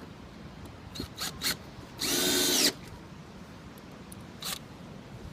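Power drill driving a screw into a wooden stair tread in one short burst of under a second, about two seconds in. A few light clicks come before and after it.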